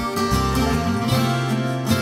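Background music with plucked acoustic guitar over a steady bass line.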